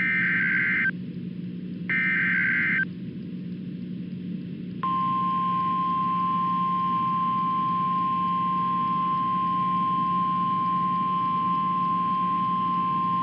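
Emergency Alert System alert signals: two short data bursts of buzzing, about a second each and a second apart, ending the SAME header, then after a pause a single steady alert tone near 1 kHz, the 1050 Hz Weather Radio alert tone, held for about nine seconds. A low steady hum runs underneath.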